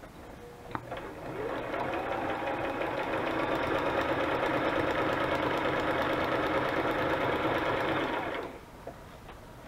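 Sewing machine running a straight stitch through paper. After a click about a second in, it speeds up, runs steadily, and stops near the end.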